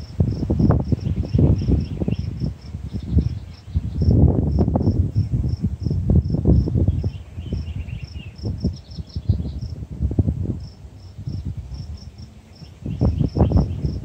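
Crickets chirping steadily, a high chirp repeating about two or three times a second with short trills between. Louder irregular low rumbling comes and goes underneath.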